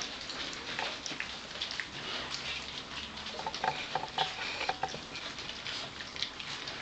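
Four-week-old Gordon Setter puppies lapping and chewing soft food from a shallow dish: a fast, irregular run of clicks and smacks, with a few short squeaks around the middle.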